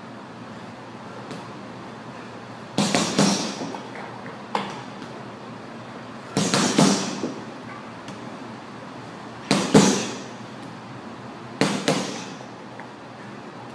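Boxing gloves punching a hanging Life Fitness heavy bag: five bursts of quick combinations, mostly two or three hits each, spaced a couple of seconds apart, each hit a sharp smack.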